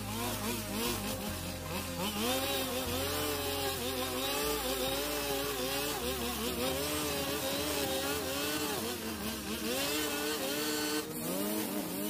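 A 45 cc petrol brush cutter running hard, its engine pitch dipping and recovering over and over as the nylon line bites into thick grass. Background music with a bass line plays underneath.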